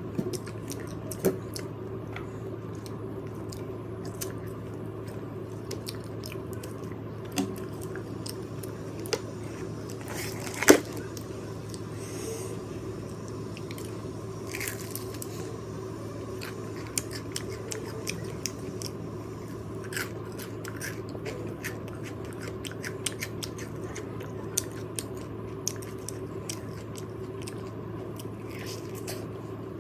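Close-miked chewing and biting of fried chicken, with scattered short crackling clicks over a steady low hum; one sharp click stands out about eleven seconds in.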